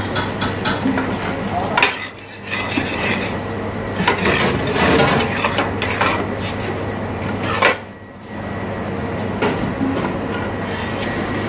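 Long flat metal spatula scraping and knocking against the sides and bottom of a large steel pot as a thick mix of grated ash gourd, milk and sugar is stirred, over a steady low hum. The stirring briefly stops about two seconds in and again about eight seconds in.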